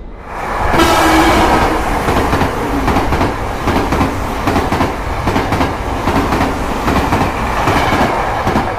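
Diesel locomotive-hauled train passing close by at the platform, its engine loud at first, with a rhythmic clickety-clack of wheels over the rail joints. The noise rises sharply about half a second in and stays loud to near the end.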